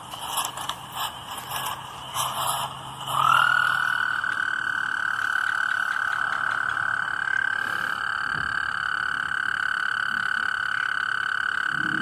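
Common tree frog calling in short bursts of clicks. About three seconds in, a steady high-pitched tone starts with a short upward slide and holds unbroken.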